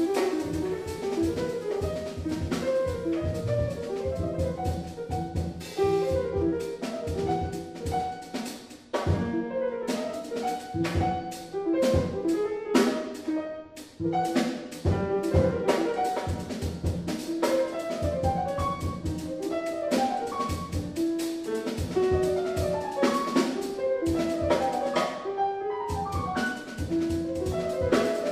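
Live acoustic jazz quartet: alto saxophone playing a busy melodic line over grand piano, upright bass and drum kit with cymbals.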